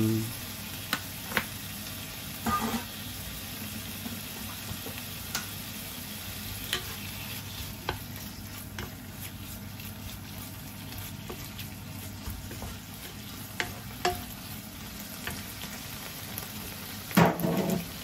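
Pork and leek frying in a nonstick frying pan just after soy sauce has been added, a steady sizzle, with a wooden spatula scraping and tapping as the food is stirred. A louder knock comes near the end.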